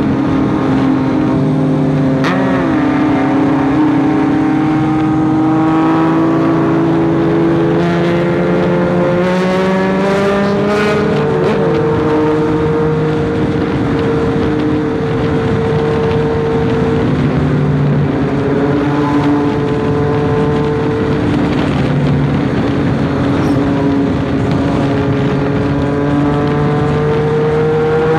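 Triumph Street Triple's three-cylinder engine running at highway cruising speed, its note rising slowly, holding, dipping briefly and rising again near the end, with wind rushing over the microphone.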